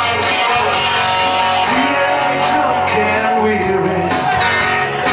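Live band playing: strummed acoustic guitars with a lead electric guitar, amplified through a PA.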